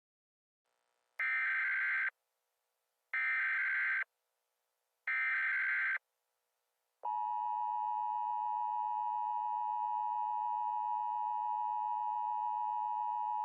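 Emergency Alert System alert tones: three short bursts of the SAME data header, each about a second of buzzy digital warble, then about seven seconds in the steady two-tone EAS attention signal starts and holds.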